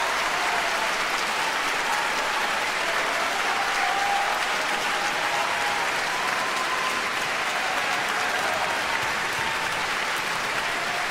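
Large concert-hall audience applauding, a dense, steady clapping, with a few voices calling out over it in the first half.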